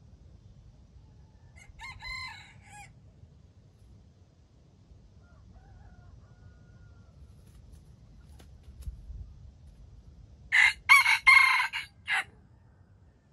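Red junglefowl rooster crowing: a fainter crow about two seconds in, then a loud crow near the end, broken into several short pieces.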